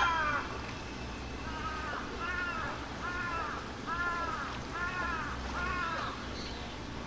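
A bird calling repeatedly: about six short calls, each rising then falling in pitch, roughly one every second, stopping about six seconds in.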